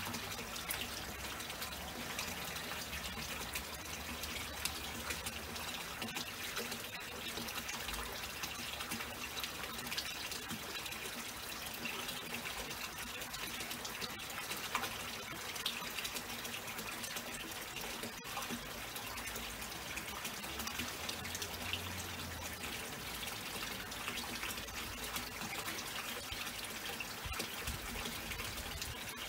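Water running and trickling into a pool in a steady splashing hiss.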